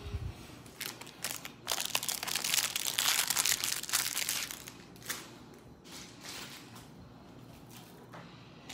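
Crinkling and rustling of handled packaging, with a few sharp clicks. It is loudest through the first half, then dies down to quieter handling noise.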